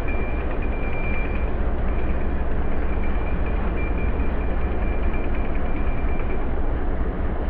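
Boat engine running steadily under way, a dense low noise with a thin, steady high whine over it that fades out near the end.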